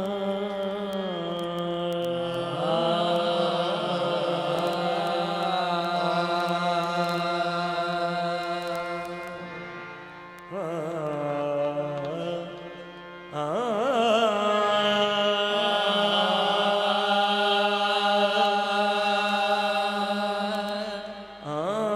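Qawwali singing: a voice holding long, ornamented notes that waver and bend, over a steady drone. It breaks off briefly about ten seconds in and again about thirteen seconds in.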